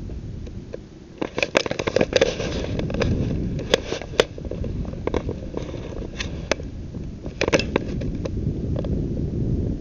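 Low wind rumble on the microphone, with clusters of sharp crackles and clicks starting about a second in and scattered singly after that.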